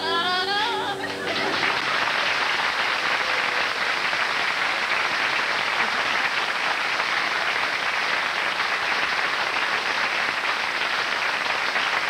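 Audience applauding steadily, after a sung note that glides and ends about a second in.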